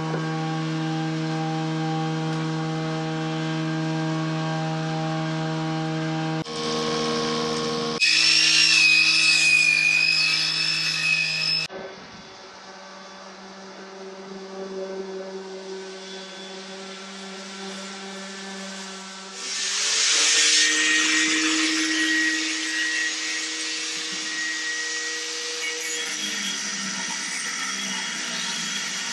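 Woodworking power tools running on the wooden spar of a sailboat boom, in a string of short segments. Each cut brings a steady motor whine at a new pitch, with the noise of the tool on wood. It is loudest about eight seconds in and again around twenty seconds.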